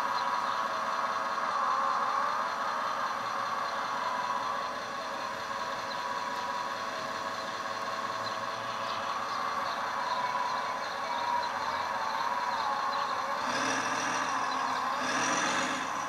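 Electric hydraulic pump of a full-hydraulic 1/14-scale RC CAT excavator whining steadily as the arm and bucket move, its pitch wavering up and down with the load. Near the end a scraping, rattling burst as the bucket digs into the dirt pile.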